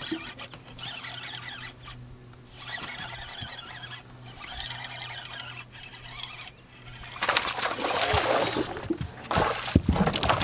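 Lew's Mach 1 baitcasting reel cranked in short bursts as a hooked largemouth bass is reeled in on braided line, over a steady low hum. About seven seconds in, louder splashing and thrashing of the fish at the surface beside the boat takes over as it is brought in to be landed.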